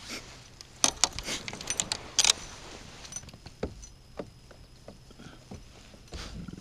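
Fishing rods and tackle being handled in a kayak: a cluster of sharp clicks and rattles in the first couple of seconds, then a few scattered faint ticks.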